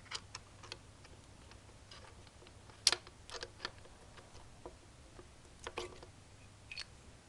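Scattered light metallic clicks and clinks of hand tools and parts being handled while undoing the connecting-rod cap bolts on a Chevy 400 small-block. The sharpest click comes about three seconds in, with small groups of taps after it.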